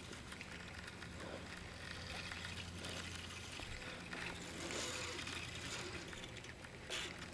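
Minn Kota Endura 30 lb electric trolling motor running with a steady low hum, pushing the kayak along, with a soft hiss of water against the hull.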